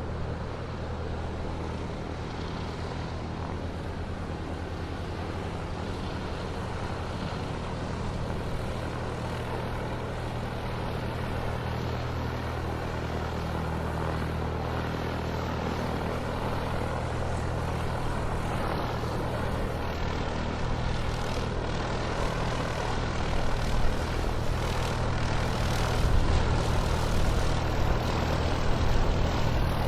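Airplane engines running through a takeoff: a low steady hum under a broad rushing noise that slowly grows louder, turning rougher and more uneven in the last third.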